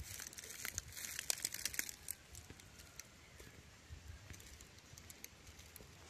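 Faint crinkling and clicking, dense in the first two seconds, then thinning to a few scattered clicks.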